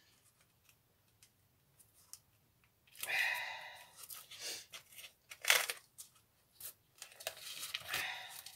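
Rustling and scraping from gloved hands working a small box on a sheet of paper. It starts about three seconds in, with one sharp, louder sound about halfway through.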